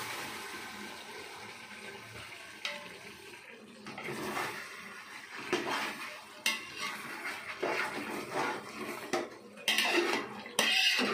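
A flat metal spatula scraping and clanking against the sides of a large metal pot as chicken masala is stirred, with a few sharp knocks, the loudest near the end. A soft sizzle from the steaming chicken fades over the first few seconds.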